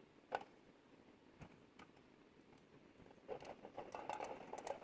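Metal tool knocking and scraping against the inside of an antique brass bowl: a single sharp click early on, then a quick run of clicks and scraping over the last second and a half.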